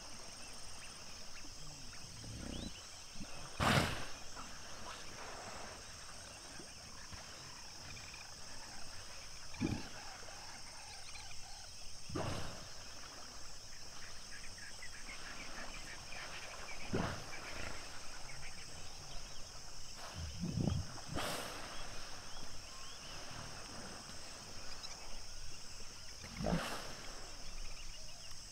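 Common hippos (Hippopotamus amphibius) of a pod calling now and then: a handful of short grunts and honks, the loudest about four seconds in. A steady high-pitched chorus of insects runs underneath.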